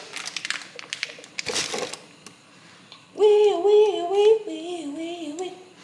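Plastic food packaging crinkling for about two seconds, then a woman humming a short, wavering tune with her mouth closed.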